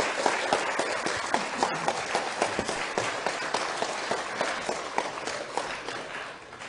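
Audience applauding: many hands clapping at once, slowly fading toward the end.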